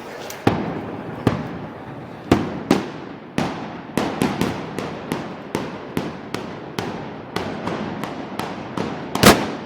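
A rapid string of about twenty sharp gunpowder bangs from festival firecrackers, each trailing off in a short echo. They come irregularly at first, then settle to two or three a second, with the loudest bang near the end.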